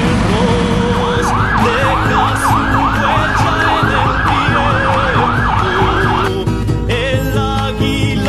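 Siren yelping fast, rising and falling about three times a second, over background music. The siren stops suddenly about six seconds in, leaving the music.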